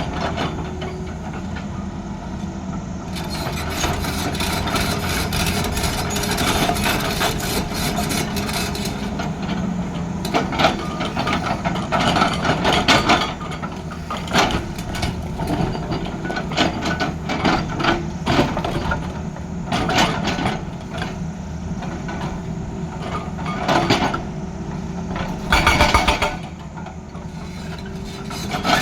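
Tata Hitachi excavator's diesel engine running steadily under load, with irregular knocks, scrapes and rattles from its work, and a louder clattering burst near the end.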